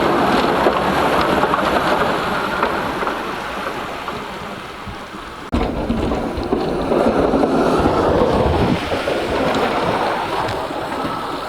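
Steady rushing road and wind noise of a vehicle driving through a snow storm. It fades somewhat, then jumps back up abruptly about five and a half seconds in.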